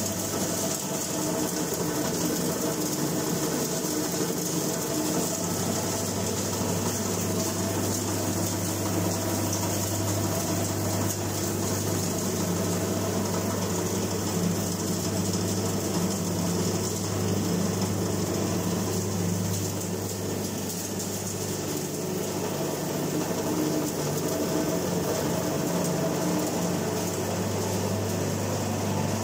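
Homemade hookah-tobacco shredding machine running steadily while it cuts tobacco: a constant low hum with a high hiss over it.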